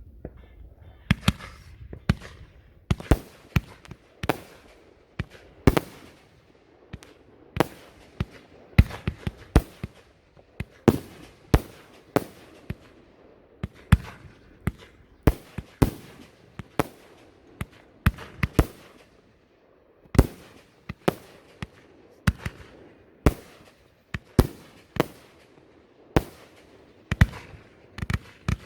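Fireworks going off in a long, irregular string of sharp, loud bangs, about one to two a second, each trailing off briefly.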